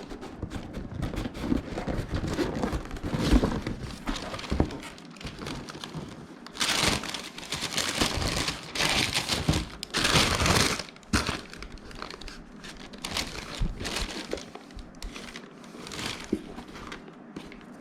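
Shoe-box packaging being handled: wrapping crinkling and rustling with small knocks, loudest in three stretches of crinkling around the middle.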